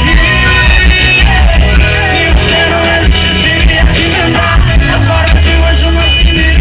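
Live sertanejo band playing loudly, a male voice singing lead over electric guitar, drums and heavy bass.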